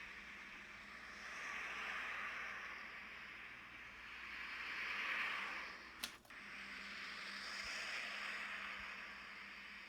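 A rushing noise that swells and fades about every three seconds, with a single sharp click just past the middle.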